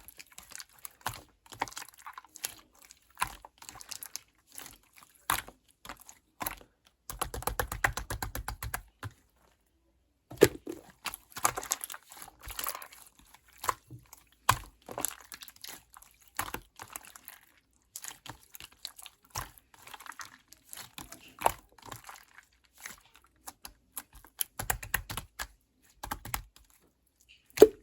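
Pink marbled pearl slime being squished, stretched and pressed by hand, giving irregular sticky clicks and small air-bubble pops, with a quick run of rapid clicks about a quarter of the way in.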